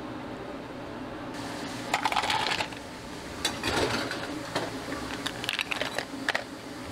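Ice cubes dropped into a clear plastic cup, clattering and clinking in a short burst about two seconds in, then in a longer run of irregular clinks.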